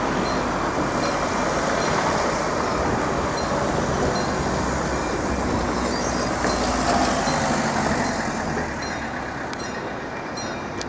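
Level crossing warning sequence: the crossing's old mechanical alarm bells ringing as the amber road light gives way to flashing red, over a loud, steady rumble.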